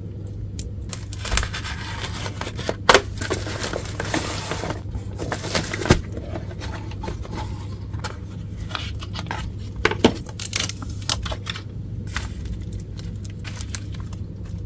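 Small hand tools and phone parts being handled during a smartphone screen replacement: irregular clicks, scrapes and crinkling, with a few sharper knocks about three, six and ten seconds in, over a steady low hum.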